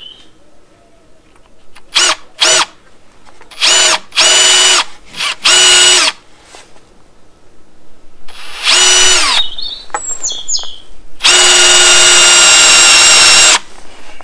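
Cordless drill with an extra-long bit boring a bracket hole into the edge of a wooden scaffold plank. The motor whines in several short trigger bursts, one of which winds up and back down, then runs steadily for about two and a half seconds near the end.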